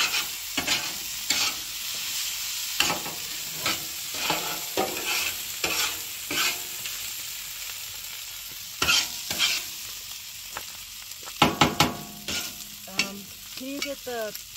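Chorizo, diced potatoes and egg sizzling on a hot griddle, with a utensil stirring and scraping across the griddle every second or so; a few sharper scrapes come near the end.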